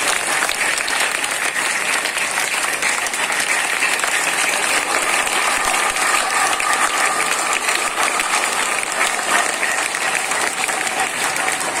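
A crowd of schoolchildren applauding: many hands clapping in a steady, unbroken run.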